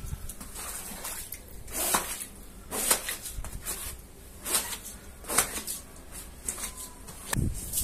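Rubber boots stepping on a soaked rug and wet floor: separate wet footsteps, about one a second.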